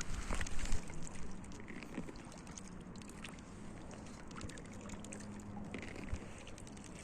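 Paddling an inflatable kayak: the paddle blades dip into the water and water trickles and drips off them, with a louder splashy stroke in the first second.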